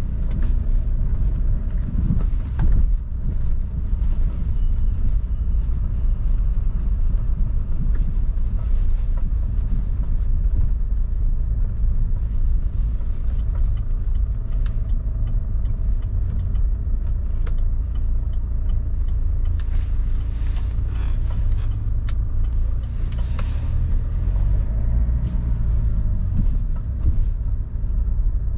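Car driving along: a steady low rumble of engine and tyre noise, with a few short knocks and rattles now and then.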